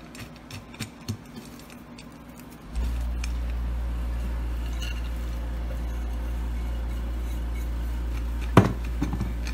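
Light clicks and taps of hands pressing crushed chocolate sandwich cookie crumbs into a glass pie plate. From about three seconds in, a steady low hum runs underneath, and a single sharp knock comes near the end.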